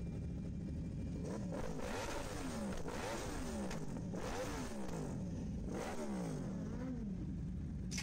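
Sportbike with an Akrapovič aftermarket exhaust idling, then revved in a series of about five quick throttle blips. Each time the engine note rises and drops back toward idle.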